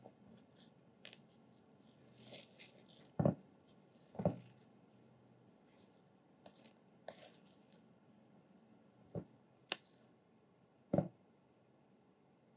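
Silicone spatula folding and scraping macaron batter around a stainless steel bowl: soft wet scrapes and swishes broken by a few sharp knocks, the loudest about three and four seconds in and again near the end. This is the macaronage stage, folding Italian meringue into the pistachio paste.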